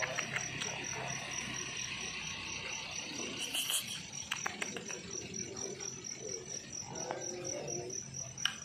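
Crickets chirping at night: a steady, evenly pulsing high trill that runs on without a break. A few faint clicks and knocks sound over it, with a sharper click near the end.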